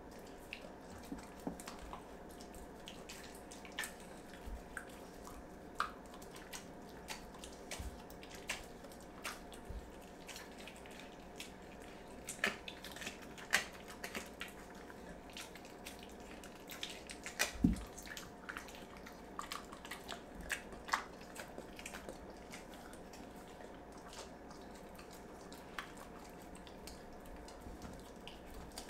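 Dog eating raw food off a hardwood floor: wet licking and chewing, heard as irregular small smacks and clicks, a few louder ones around the middle.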